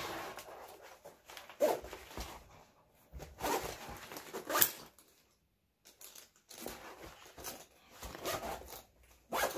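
A sling bag being handled: irregular rustling and crinkling of its fabric and plastic, with a few sharp clicks.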